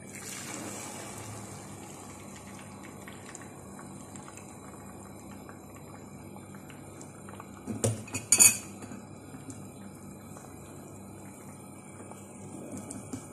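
Beaten eggs sizzling as they are poured into a hot, oiled nonstick frying pan, with a brief brighter hiss as they first hit the pan. About eight seconds in come two sharp clinks of cookware.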